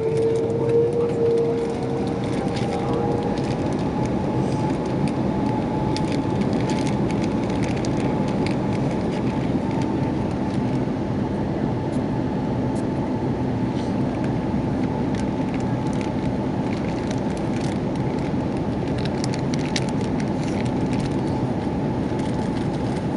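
Airbus A330-300 jet engines heard from inside the passenger cabin, their whine rising in pitch over the first few seconds and then holding steady at high power over a loud, even rumble.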